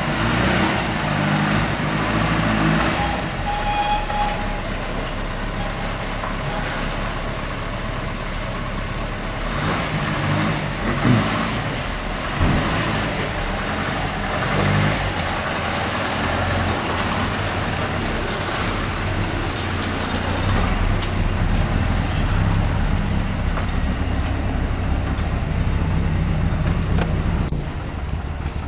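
A motor vehicle engine runs steadily under a general wash of road traffic noise.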